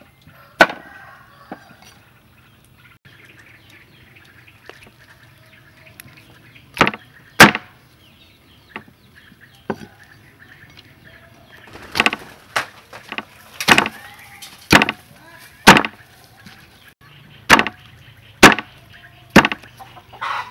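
Cleaver chopping a roasted chicken on a wooden chopping board: sharp, separate chops, a few spaced out at first, then a run of about ten in the second half.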